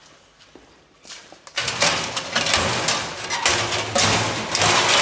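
Cinema projection-booth equipment switched on: a couple of faint clicks, then about a second and a half in a loud, steady mechanical din full of rapid clicking starts suddenly and keeps running, typical of a film projector running.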